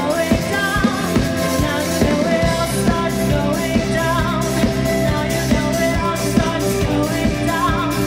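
Live rock band: a woman singing into a microphone over a drum kit and electric guitar, with a steady beat. The low end gets heavier about two and a half seconds in.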